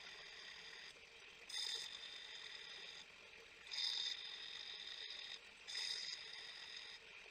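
Bench grinder running while a steel chisel is pressed against the wheel in three passes, each a gritty grating with high ringing tones lasting about a second, about two seconds apart. The grinder motor hums steadily between passes.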